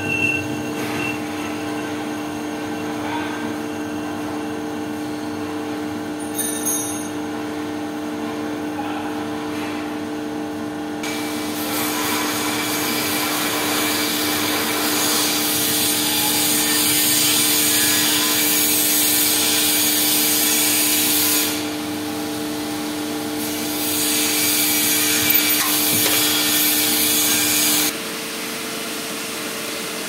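CNC lathe running with a steady motor whine while the turning tool cuts a small metal handle knob. A loud hiss comes in about a third of the way through, breaks off for a couple of seconds, returns, and cuts off together with the main whine near the end, leaving a lower hum.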